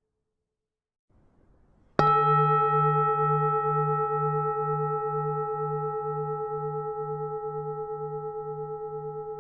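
Buddhist temple bell struck once about two seconds in, then ringing on as it slowly fades, its low hum pulsing two or three times a second.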